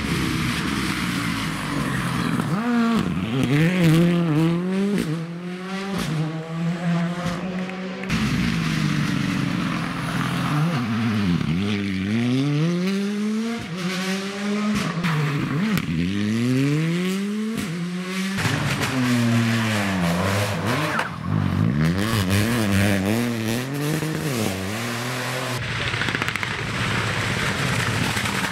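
Rally car engine revved hard, its pitch climbing and dropping back again and again as it shifts gear and lifts off for the corners.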